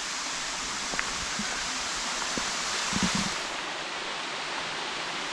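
Steady rush of a shallow creek spilling over a rock ledge at the lip of a waterfall, with a couple of light knocks about a second and three seconds in.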